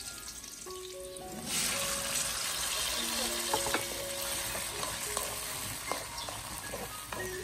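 Food frying in oil in a pan, sizzling steadily, growing louder about a second and a half in.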